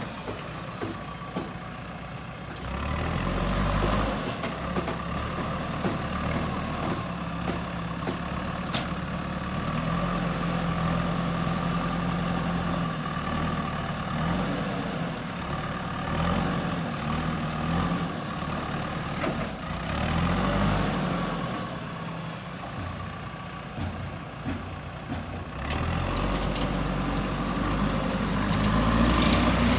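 Backhoe loader's diesel engine running under load, revving up and settling back several times as the hydraulics work the bucket.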